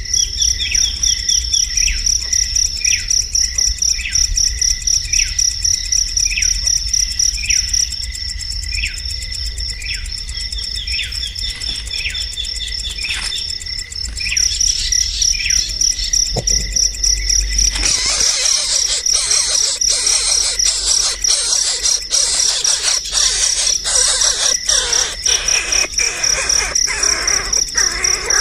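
Bird calls, short and falling in pitch, repeated about once a second, over a steady, rapidly pulsing high insect trill. Past the halfway point the calls stop and a harsher, scratchy chatter with quick clicks joins the trill.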